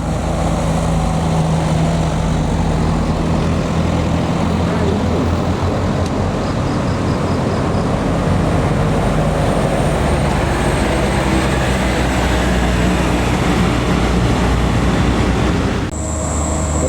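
Heavy diesel vehicle engine running, a loud steady low drone close by, with no clear rise or fall in pitch.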